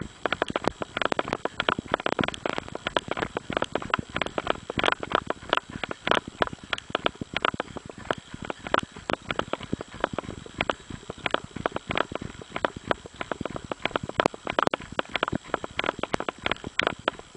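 Running footsteps crunching on a loose gravel dirt road, a quick, steady stream of sharp crunches several times a second.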